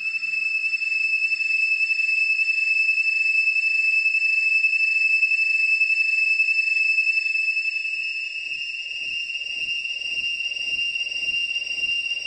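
A steady, high-pitched electronic tone held without change, over a faint hiss. About eight seconds in, a soft low pulsing joins it, about two or three pulses a second.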